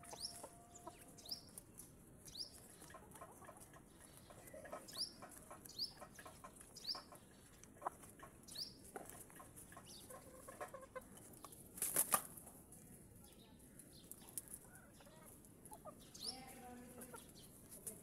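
Hens foraging on grass: scattered soft pecking and scratching ticks, short high chirps recurring every second or so, and a single sharp clatter about twelve seconds in. A hen gives a low cluck near the end.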